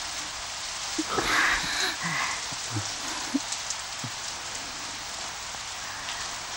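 Heavy rain falling steadily, an even hiss with a brief swell about a second in.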